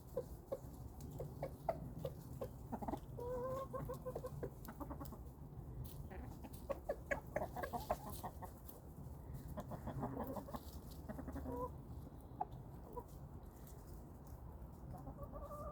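Chickens clucking, with short calls and a scatter of sharp ticks among them.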